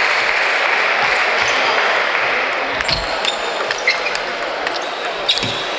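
Table tennis ball clicking sharply a handful of times off the table and bats, at uneven spacing from about halfway in, over a steady rushing background noise that fades a little after the first half.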